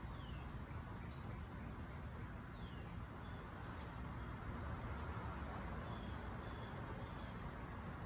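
Outdoor ambience: a steady low rumble with a few short, falling bird chirps and some brief high peeps over it.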